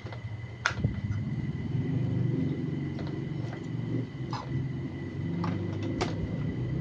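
A handful of short, sharp clicks and taps from small laptop parts being handled and fitted, over a steady low rumble.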